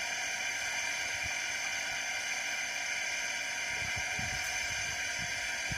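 Steady high hiss throughout. From about four seconds in come soft, wet low squelches as hands grab into thick pond mud.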